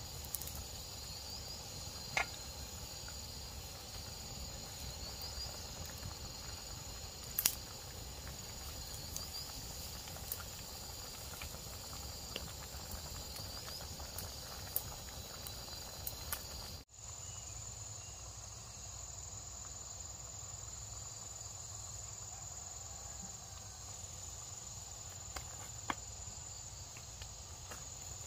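Steady high-pitched insect chirring throughout, over a pot of water at a rolling boil on a wood fire, with a few sharp crackles from the fire.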